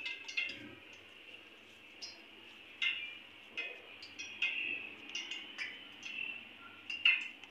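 Faint, irregular clicks and light taps of fingers and dough against a steel bowl as kachoris are pressed into shape by hand, each with a brief metallic ring.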